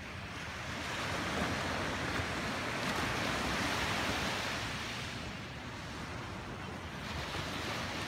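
Ocean waves washing onto the beach: a rush of surf that builds over the first couple of seconds, peaks, and fades, then a smaller wash near the end.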